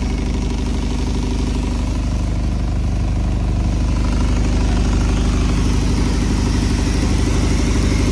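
Rock salt grinding machine running steadily, a constant low mechanical drone.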